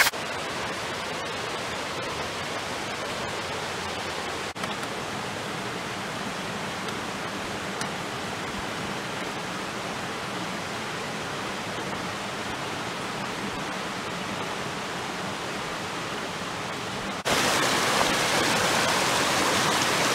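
Steady rush of water from a small rocky creek. It gets louder and brighter about 17 seconds in.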